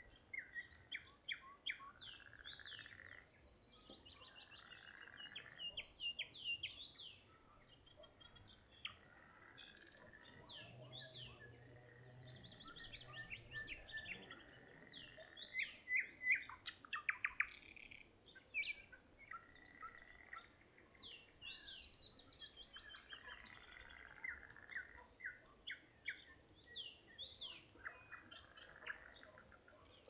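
Nightingale singing a continuous run of varied phrases: rapid trills, quickly repeated notes and whistles, loudest about halfway through.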